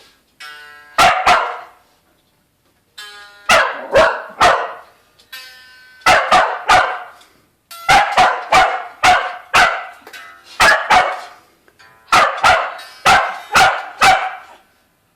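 Dog barking over and over in quick runs of several barks, at guitar playing; a few ringing guitar notes sound between the first barks, then the barking takes over.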